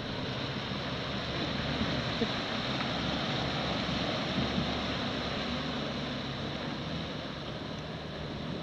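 Jeep Wrangler fording a shallow river: water rushing and splashing around its tyres as it pushes through, with the engine running low underneath.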